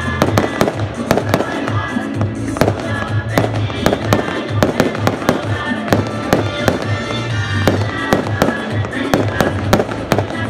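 Fireworks display: shells bursting and crackling over music with a steady beat and a pulsing bass.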